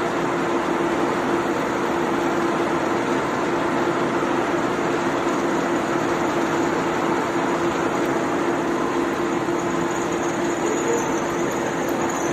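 Pillar drilling machine running steadily: a constant motor hum with one steady tone under a broad whir. A faint high whine comes in near the end.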